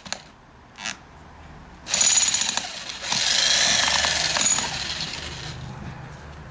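Corded electric demolition hammer with a flat chisel bit hammering into a tree stump, breaking up the wood. It runs in bursts: a brief one just under a second in, a short loud one around two seconds, then a longer run from about three seconds that tails off near the end.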